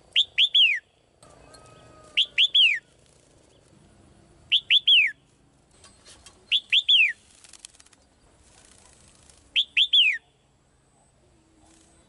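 Female red-whiskered bulbul singing in its cage: five short phrases, roughly two seconds apart, each of three quick notes sliding down in pitch.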